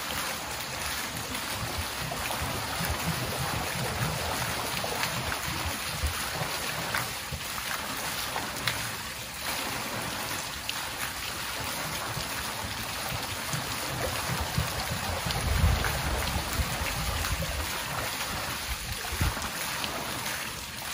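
Water dripping and splashing over a steady watery hiss, with a low uneven rumble that swells about three-quarters of the way through.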